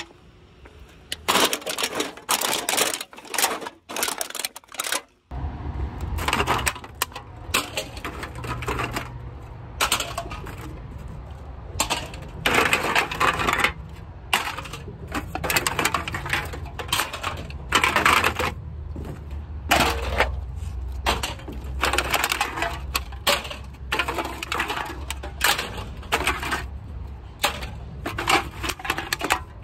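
Empty aluminum drink cans clattering and clinking as they are picked from a pile and dropped into a plastic milk crate, in many irregular clanks. A low rumble runs underneath from about five seconds in.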